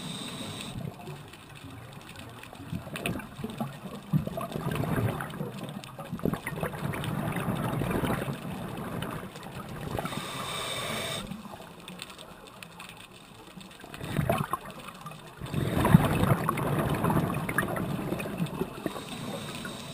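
Scuba diver breathing through a regulator underwater: surges of exhaled bubbles several seconds apart, with a short hissing inhale about halfway through.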